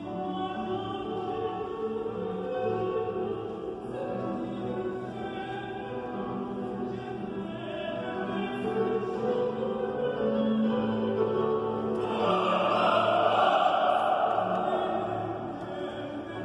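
Large choir singing a classical choral piece. The voices swell to a louder, brighter passage about twelve seconds in, then ease back.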